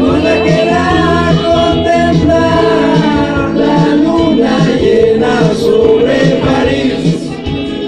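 A man singing into a karaoke microphone over a pop-rock backing track, his voice amplified through the speakers.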